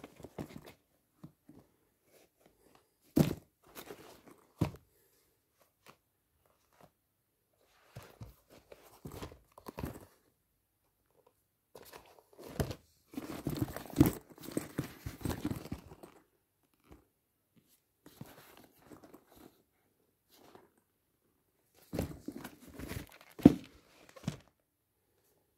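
Sneakers being handled by hand: rustling and scuffing of shoe material, with a few sharp knocks as shoes are set down or bump each other, the loudest knock near the end.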